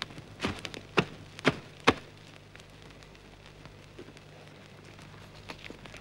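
Four sharp knocks about half a second apart, then faint crackling from small fires burning beside a charcoal kiln, over a low steady hum.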